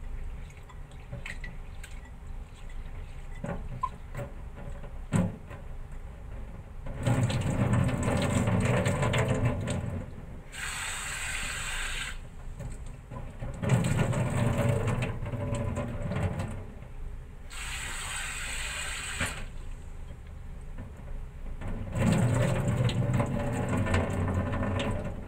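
Soaked glutinous rice being washed by hand in a ceramic bowl at a kitchen sink: first a few small clicks, then long stretches of sloshing water as the grains are rubbed, with the rinse water poured off into the sink twice in hissing runs.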